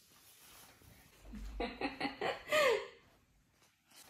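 A baby's short giggle: a few quick breathy pulses ending in a brief high-pitched squeal that falls in pitch, about two and a half seconds in. A low rumble comes just before it.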